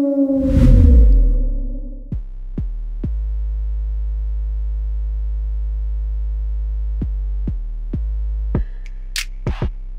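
Electronic music: a falling, howl-like tone fades under a low boom about a second in, then a held synth bass note is punctuated by sharp drum-machine hits, breaking into a faster drum-machine beat near the end.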